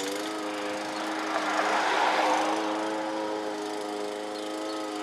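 Lawn mower's small petrol engine running steadily at speed, with a louder swell about two seconds in.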